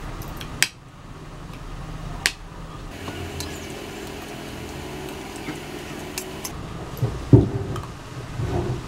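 Metal spoon and fork clicking against a plate a few times while eating, over a steady low hum. A loud dull thump comes about seven seconds in, with softer low knocks just after.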